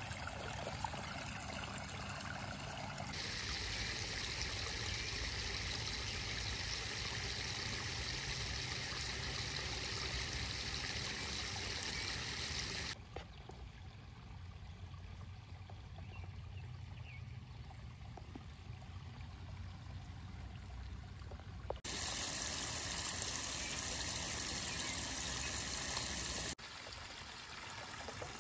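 Water trickling and splashing steadily over rocks from a small garden-pond waterfall. It grows louder and brighter abruptly a few seconds in, drops to a softer trickle for a stretch in the middle, then comes back up.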